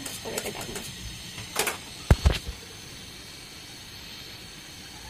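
Flower pitha frying in hot oil in a kadai: a faint steady sizzle, with a few light clicks, a sharper clatter about a second and a half in, and two heavy dull thumps about two seconds in.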